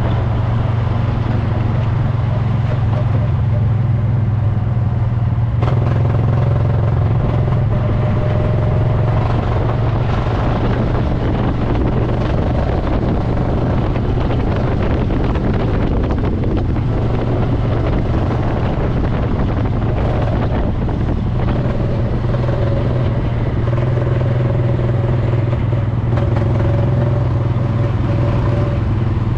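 Go-kart engine running steadily under way, a constant low drone with the pitch wavering slightly.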